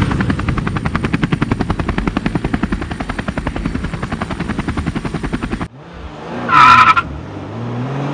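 Cinematic title-sequence sound effects. A fast, rhythmic chopping pulse cuts off about six seconds in. About a second later comes a loud whoosh with a ringing tone, then low tones sliding in pitch.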